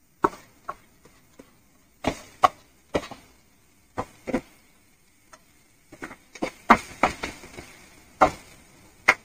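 A cooking utensil knocking and scraping in a frying pan as chopped onion is stirred in with the oil and cumin seeds. The sharp knocks come irregularly, a few at a time, busiest about two-thirds of the way through.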